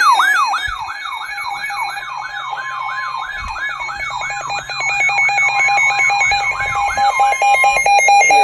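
Electronic siren sweeping up and down about two to three times a second over a steady alert tone. Near the end the sweeps fade out, leaving the steady tone and a rapidly switching higher tone.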